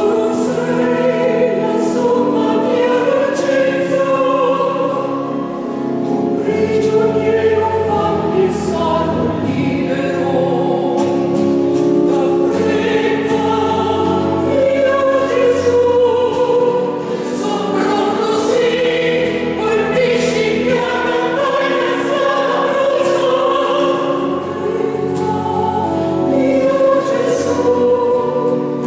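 A choir singing in long, held phrases, with the level dipping briefly between phrases three times.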